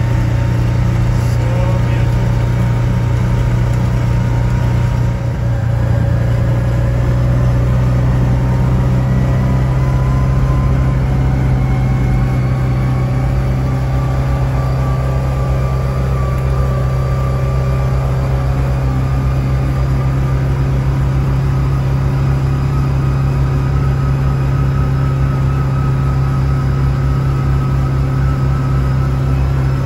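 Side-by-side utility vehicle engine running at a steady speed while driving, a constant low drone with faint higher tones that drift slowly upward.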